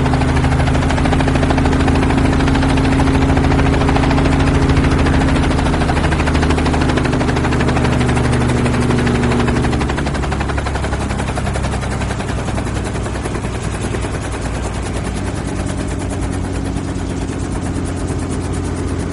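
Helicopter in flight heard from inside the cabin: the engine and rotor run steadily with a rapid, even blade chop. About halfway through, the low engine hum thins out and the sound gets slightly quieter.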